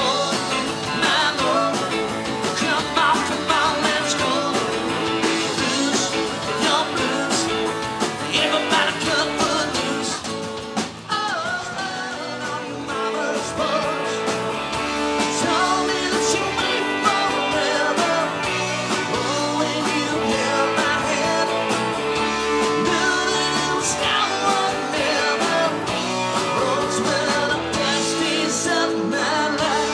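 Live country-rock band playing: a singer with acoustic guitar, backed by electric guitars and a drum kit. The music dips briefly about eleven seconds in, then carries on.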